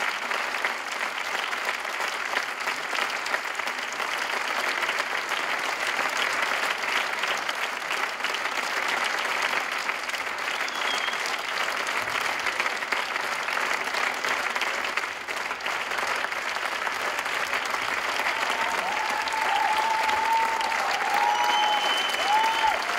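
Theatre audience applauding steadily, a dense clapping that does not let up, with a few calls and a whistle rising over it near the end.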